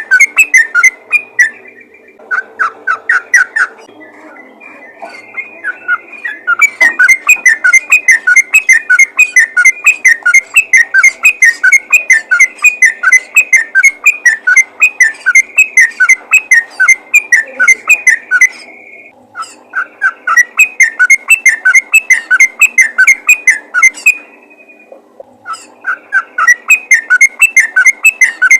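Yellow-vented bulbul (trucukan) calling in long, fast rolling bouts of chattering notes, about five a second, broken by a few short pauses: the loud, sustained 'ropel' call used to lure other bulbuls.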